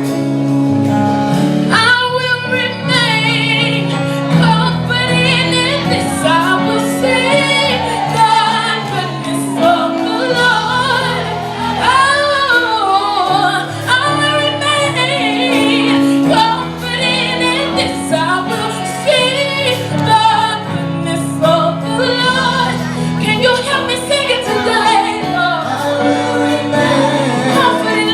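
Gospel worship music: a woman sings long, wavering, gliding vocal runs without clear words over sustained chords.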